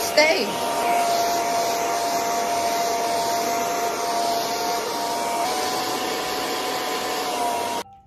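Handheld hair dryer with a comb nozzle running steadily, blowing on hair: an even rushing of air with a steady whine. It is switched off abruptly near the end.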